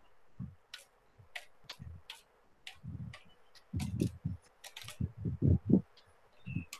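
Computer keyboard being typed on: irregular keystrokes, each a sharp click, many with a short low thud, coming closer together in the second half.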